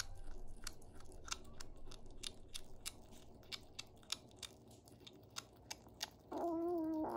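Kitten chewing on a strip of dried pollack: faint, irregular crunching clicks a few times a second. Near the end comes a short wavering cry lasting about a second.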